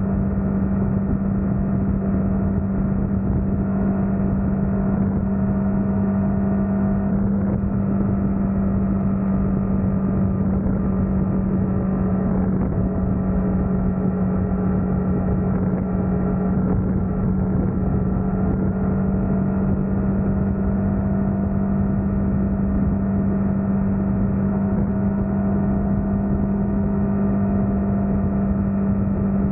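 Honda Transalp motorcycle engine running at steady cruising revs: one unchanging drone over a steady rush of road noise.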